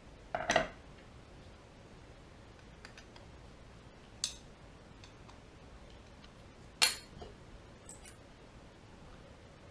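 Small metal carburetor parts clicking and clinking as they are handled and fitted together during reassembly: a handful of separate light taps at irregular intervals, the loudest about half a second in and about two-thirds of the way through.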